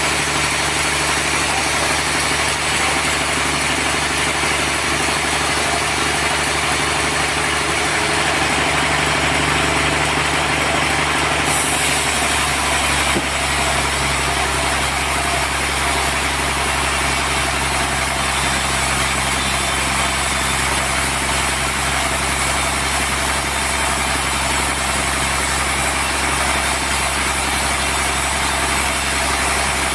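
Sawmill machinery running steadily while sawing a trembesi log into planks. About twelve seconds in, the sound changes, taking on a higher hiss and a deeper hum.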